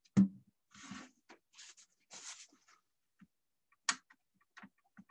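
Handling sounds at a DVD recorder's disc drive: a sharp knock near the start, then light rustling and scraping as the optical lens head is worked by hand along its freshly oiled glide rods, and a sharp click about four seconds in.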